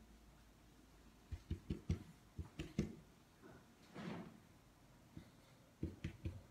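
Handling noise: a quick run of soft, dull knocks and bumps, a brief rustle a little later, then a few more knocks near the end.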